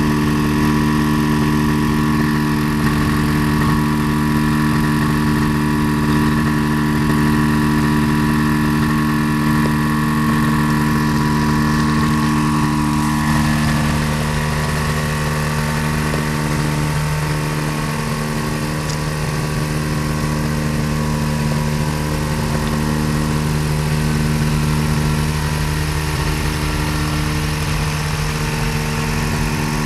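Kolb ultralight's pusher engine running at a steady idle, with the propeller turning, during its first engine runs. It gets a little quieter about halfway through.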